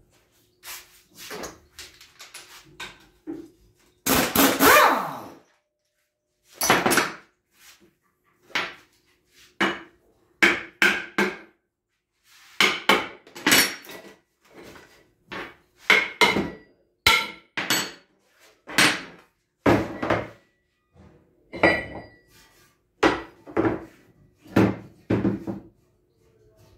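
Irregular metallic clanks and knocks from tools and parts striking the aluminium case of an A442F automatic transmission as it is dismantled on a workbench, about two dozen separate strikes, the loudest a longer clatter about four seconds in.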